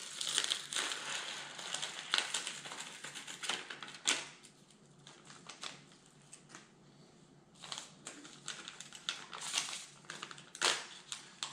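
Small seasoning packets crinkling and rustling as they are torn open and shaken out over a stone mortar, in crackly bursts of quick ticks. There are two busy spells, the second starting about halfway through, with a quieter stretch between them.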